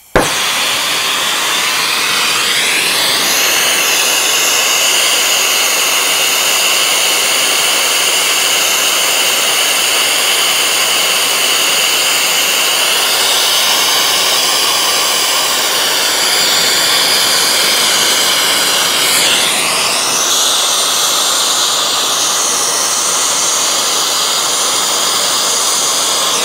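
Air-acetylene torch with a Goss GA14 tip burning, a loud steady rushing hiss of the flame as it heats a black iron pipe nipple for bronze brazing. It comes on suddenly at the start, and its high whistling tone shifts about three seconds in and again about twenty seconds in.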